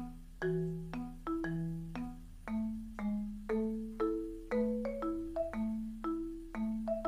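Background music: a light marimba tune of struck, ringing notes at about two a second over a simple bass line.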